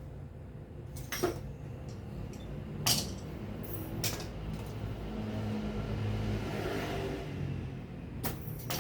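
Several sharp knocks and clanks, about five in all, over a low rumble that swells and fades in the middle.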